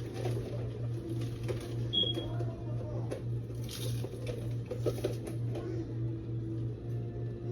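Kitchen handling sounds, light knocks and clatter of things being moved, over a steady low hum, with one short high electronic beep about two seconds in.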